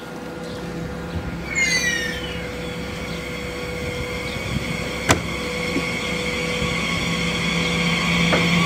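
DB class 445 Twindexx Vario double-deck electric multiple unit running in alongside the platform, its steady electric whine and rolling noise growing louder. A brief falling squeal comes about one and a half seconds in, and a single sharp knock about five seconds in.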